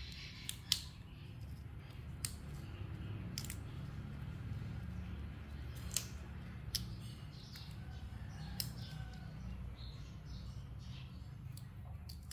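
Small snaps and clicks scattered through, as fingers pull apart and break the stems and calyxes of fresh red flowers over a steel bowl, over a steady low hum.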